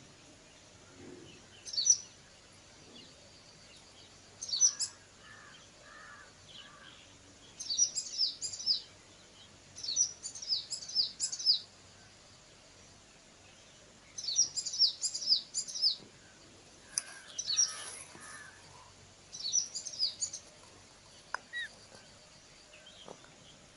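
Small bird chirping in repeated short bursts of quick, high notes, with pauses of a second or more between bursts and a few lower call notes among them.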